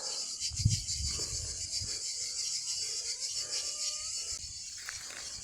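Insects chirring steadily in a high, fast-pulsing drone, with a couple of soft low thumps in the first two seconds.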